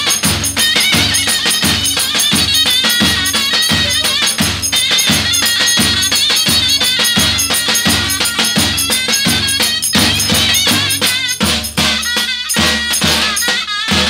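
Zurna playing a wavering, ornamented folk melody over two davul bass drums beating a steady rhythm, about two strokes a second. Near the end the playing turns broken and uneven.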